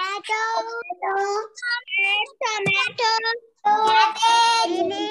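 Children's high voices calling out in drawn-out, sing-song phrases, several short ones and a longer one near the end.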